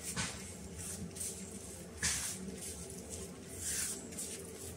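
Fingers mixing a crumbly chili-powder masala on a banana leaf: irregular soft scrapes and rustles of the hand rubbing the spice mix against the leaf, with a stronger scrape about two seconds in.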